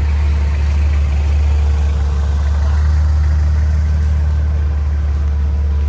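A car driving along the road: a steady, low rumble of engine and road noise.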